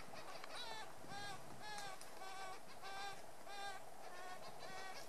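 Female Magellanic woodpecker calling for food: a rapid series of short, bending calls, about two to three a second, starting about half a second in.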